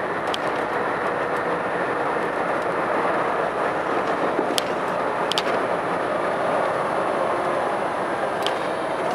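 Truck driving at road speed: a steady mix of engine and tyre noise, with a few short sharp clicks or rattles along the way.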